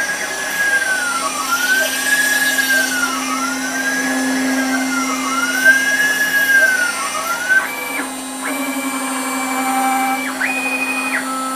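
6040 CNC router cutting a circular contour in ABS plastic with a single-flute end mill, the spindle humming steadily at 12,000 RPM while the axis motors whine in a tone that rises and falls roughly every two seconds as the tool goes round the circle. About 7.5 s in the cut ends and the machine makes rapid moves away from the part, the motor whine now held at a few fixed pitches that change in steps.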